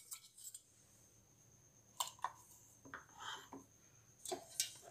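A metal spoon scraping garlic paste out of a steel mixer-grinder jar and clinking lightly against the jar and a glass bowl: a few soft clinks about two seconds in and again near the end.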